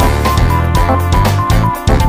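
Instrumental background music, with held bass notes that change about every half second under a short high melody.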